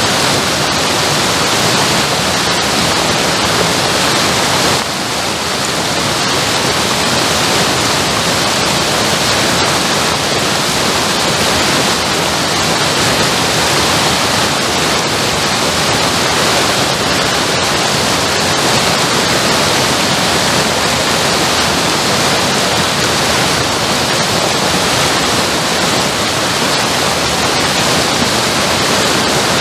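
Water from a mill race pouring through an open sluice gate and cascading down a steep stony bank: a loud, steady rush of falling water.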